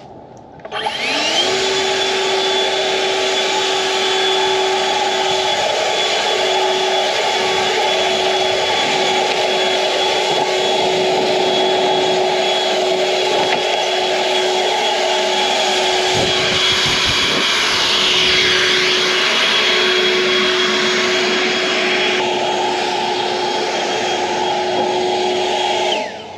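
EGO Power+ 56V LB7650 cordless leaf blower spinning up about a second in with a short rising whine, then running steadily with a high fan whine over rushing air, and shutting off near the end.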